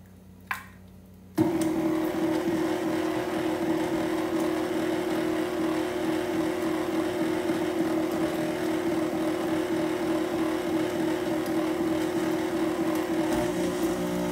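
Electric stand mixer switched on about a second and a half in, then running steadily with a steady motor hum as it beats an egg into creamed butter and sugar. A single light tap comes just before it starts.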